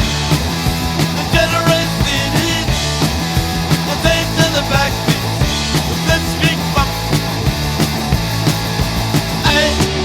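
Rock music soundtrack with a steady beat, electric guitars and drums.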